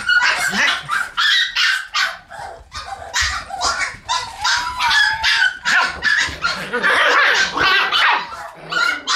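Shiba Inu puppies yipping and barking: short, high-pitched calls one after another with hardly a pause.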